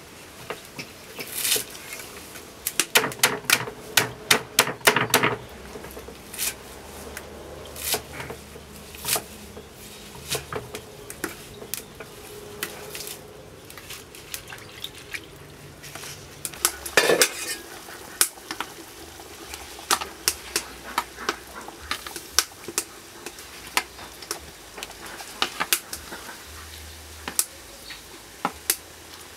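Knife chopping long green beans on a wooden chopping board: sharp knocks, with a fast run of chops a few seconds in and another burst midway, then scattered knocks and clatter.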